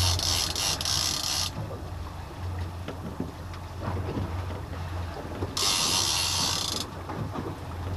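Fishing reel's drag buzzing as a hooked fish pulls line off. It stops about a second and a half in and comes back for about a second near the end, over the steady low hum of the boat's engine.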